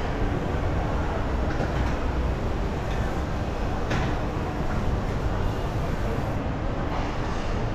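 Steady low rumbling background noise with a hiss over it, broken by a few faint short clicks.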